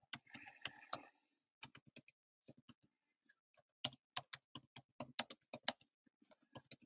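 Typing on a computer keyboard: faint runs of quick key clicks broken by short pauses, as words are typed out.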